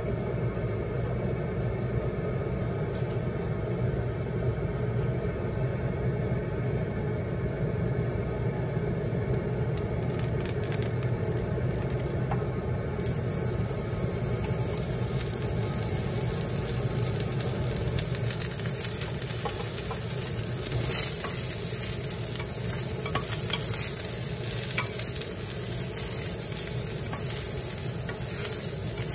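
A steady low hum, then about thirteen seconds in shimeji mushrooms drop into the hot oil and start sizzling. King oyster mushrooms are added and chopsticks stir them, clicking against the pan over the sizzle.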